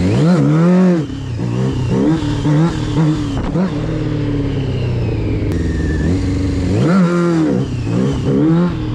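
Motorcycle engine revved hard in sharp throttle bursts, the pitch climbing and falling back several times, with a big rev in the first second and another about seven seconds in. These are the throttle blips used to lift the front wheel in wheelie practice.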